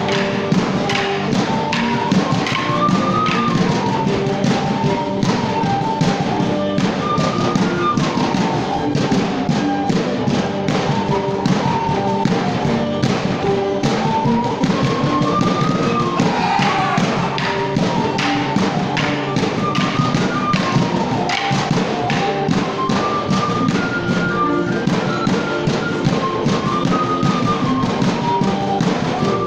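A folk tune played live for a border morris dance, with the dancers' wooden sticks clashing and their feet stamping on the stage in a regular beat of sharp knocks and thuds.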